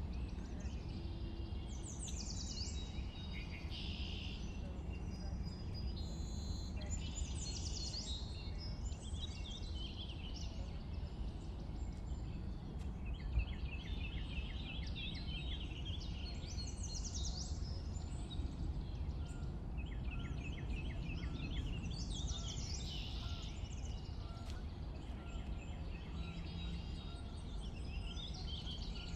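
Songbirds singing in short, varied phrases and rapid trills, one after another, over a steady low background rumble.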